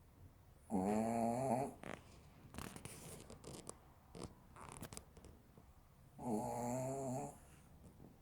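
Maltese dog snoring: two snores about five seconds apart, each lasting about a second with a wavering pitch.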